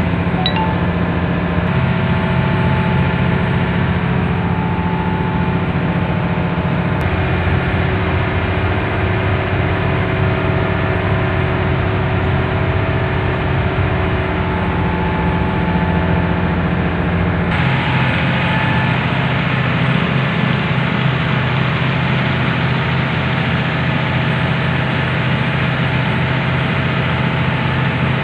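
A boat's engines running steadily while it is underway, a constant low drone. About two-thirds of the way in, the sound changes suddenly to the open aft deck, where the rush of the churning wake joins the engine noise.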